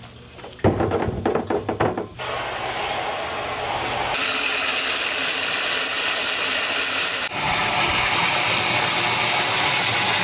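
A quick run of clattering knocks as the old outboard motor is hung on the rim of a plastic barrel. Then a garden hose nozzle gives a steady hiss as it sprays water into the barrel to fill it as a test tank.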